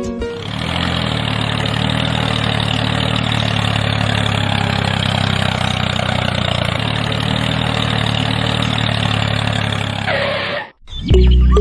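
Engine running steadily with an even low hum, cutting off abruptly near the end.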